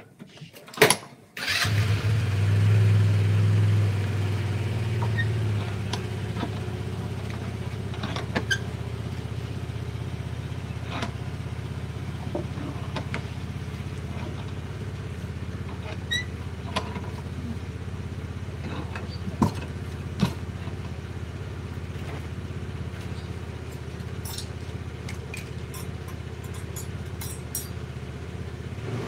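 A sharp knock, then a motor starts about a second and a half in and runs steadily with a low hum, a little louder at first, with scattered light clicks and taps over it.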